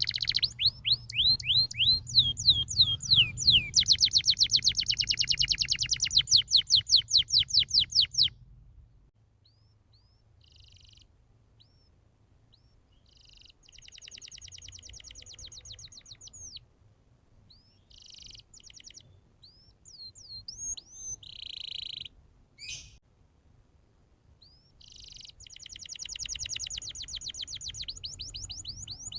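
Domestic canary singing in full song: fast trills of rapidly repeated sweeping notes for the first several seconds, then shorter separate phrases with pauses between them, and another long trill near the end.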